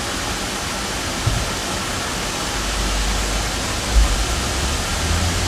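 Steady rushing noise, with a low rumble that builds from about halfway and a single thump about four seconds in.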